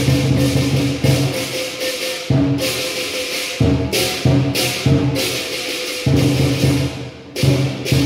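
Lion dance percussion: a large lion drum beating under loud cymbal crashes that ring out every half second to a second in an uneven rhythm.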